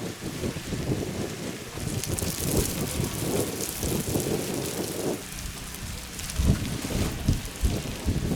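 Fried rice sizzling in a pot: a dense crackling hiss with many small pops, thinning a little about five seconds in.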